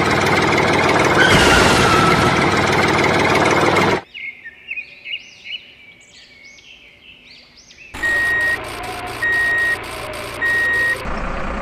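Loud engine noise for about four seconds, then birds chirping, then a truck's reversing alarm beeping three times over a running engine.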